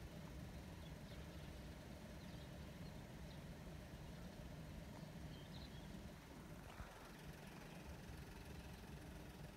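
Quiet outdoor ambience: a steady low rumble with a few faint bird chirps in the first half.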